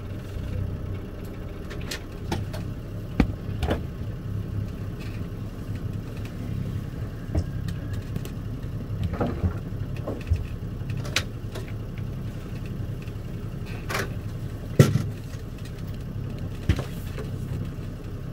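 Sailboat's inboard engine running steadily at low speed, a low rumble, with scattered knocks and clicks on deck. The sharpest knock comes about 15 seconds in.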